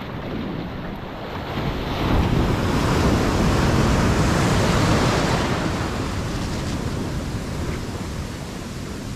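Ocean surf: a wave breaks close by and its whitewater washes up the beach. The rushing swells about two seconds in, is loudest around the middle, then eases off.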